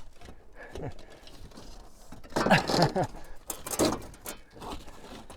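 A man's voice calling out twice in short phrases, loudest about two and a half seconds in and again near four seconds, each falling in pitch, with faint knocks of work in between.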